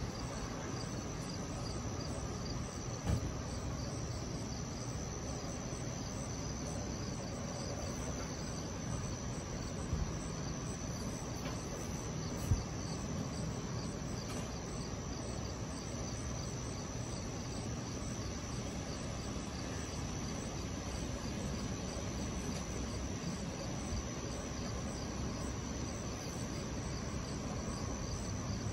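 Night insects chirping steadily, a continuous high trill with a pulsed chirp just below it, over a low steady background noise. Three short sharp knocks come through, about three, ten and twelve and a half seconds in.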